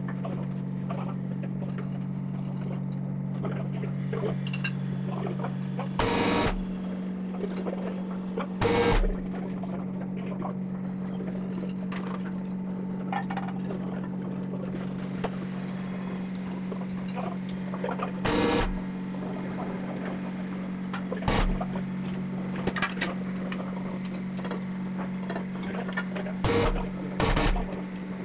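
Steady electric machinery hum in a locomotive workshop, with a handful of short, loud knocks or bangs breaking over it at irregular intervals.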